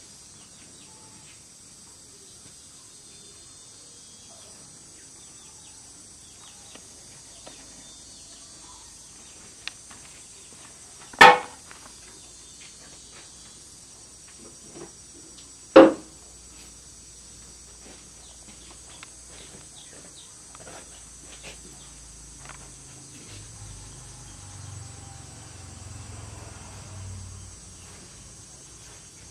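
Steady high-pitched chirring of insects, with faint rustling and small clicks from a hand handling a cat on plastic sacks. Two short, loud sounds stand out, about eleven and sixteen seconds in.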